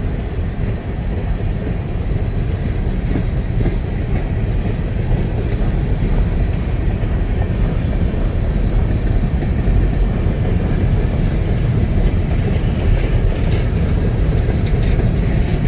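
Empty coke hopper cars of a CSX freight train rolling past, a steady, loud rumble of wheels on rail.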